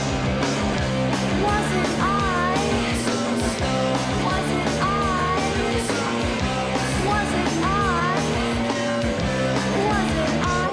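Rock song by a band playing electric guitar, bass guitar and drum kit, with a bending, wavering melody line that comes back about every three seconds.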